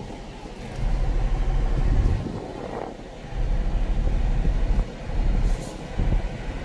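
Road traffic noise: a low rumble that swells and fades in several surges, with a faint hiss above it.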